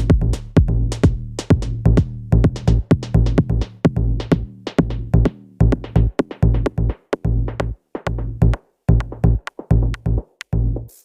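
Electronic background music with a fast drum-machine beat and bass, cutting off abruptly near the end.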